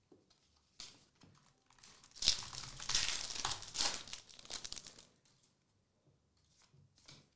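Foil trading-card pack wrapper crinkling and crackling in the hands for a few seconds, starting about two seconds in, followed by a few faint card clicks near the end.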